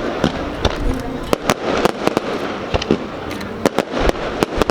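Fireworks going off in a rapid, irregular string of sharp bangs and crackles, coming in clusters in the middle and near the end.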